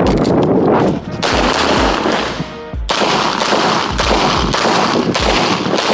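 9mm CZ Shadow 2 pistol firing a string of shots in quick succession during a stage run, over background music with a steady deep beat.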